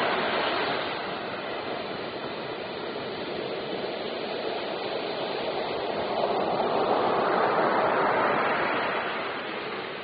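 Ocean surf: waves breaking and foam washing in a steady rush, with a wave swelling louder about six seconds in and easing near the end.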